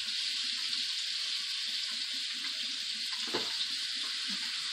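Flour-dredged beef cubes sizzling steadily in hot oil in a skillet, with a light knock about three seconds in.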